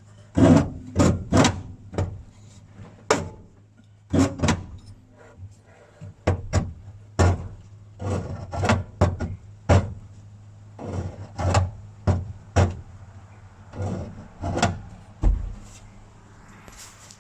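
Irregular knocks and clunks, often in quick pairs or threes, with one deeper thud near the end: the DKW F89P's pedals being pressed and let back, still binding because the pedal box needs more adjustment.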